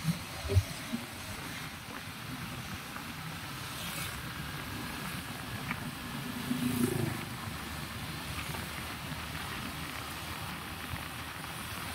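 Steady running and road noise of a moving vehicle, with two short knocks about half a second in and a brief low sound around seven seconds in.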